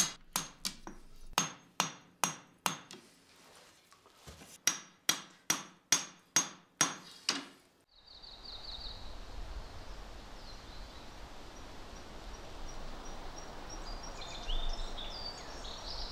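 Hand hammer striking a steel bar on an anvil, with sharp ringing blows about three a second and a short pause in the middle: a swordsmith forging a katana blade to shape. The blows stop about eight seconds in, leaving faint steady outdoor ambience with a few high chirps.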